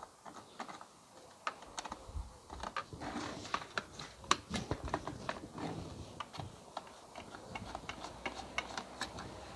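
Irregular light clicks and taps of a hand tool and small metal parts as a fitting is being undone.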